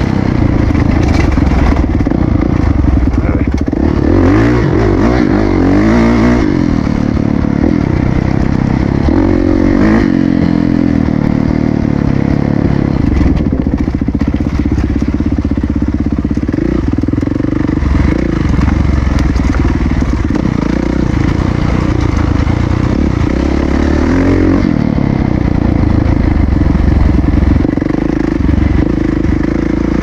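Dirt bike engine running under way on a dirt trail, its pitch rising and falling as the throttle is opened and closed, with several clear revs a few seconds in, around ten seconds in and again later.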